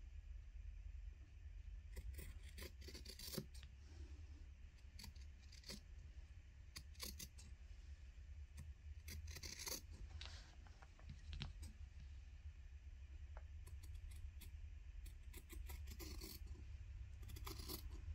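Scattered light clicks, scratches and rustles of small objects being handled, over a low steady hum.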